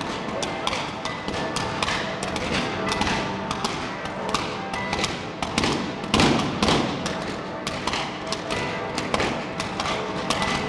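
Fireworks going off in rapid succession: an irregular string of sharp bangs and crackles, several a second, with a louder cluster of explosions about six seconds in.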